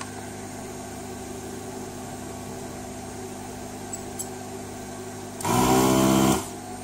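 Steady electrical hum from the bench, then about five and a half seconds in a loud motor buzz lasting about a second: the vacuum pump of an electric desoldering tool sucking solder off a socket leg.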